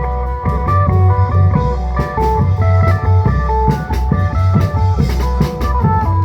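Isan klong yao band music: a fast plucked phin melody of short notes over a heavy bass and a steady beat of long drums and percussion.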